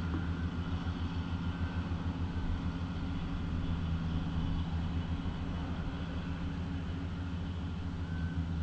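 Steady low engine hum of a running vehicle, unchanging throughout.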